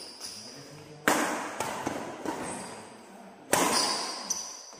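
Badminton rackets striking a shuttlecock in a rally: two loud hits about two and a half seconds apart, each ringing on in the hall, with lighter knocks between.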